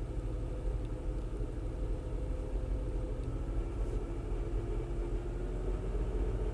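Car engine running steadily with a low rumble and a faint hum that drifts slowly up in pitch; the engine has intermittent misfires.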